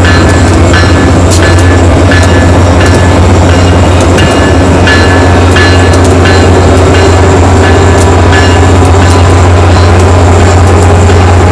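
Grand Canyon Railway F40PH diesel locomotives rolling slowly past, their engines giving a loud, steady deep hum. Short squeaky clicks from the wheels on the rails repeat about once or twice a second.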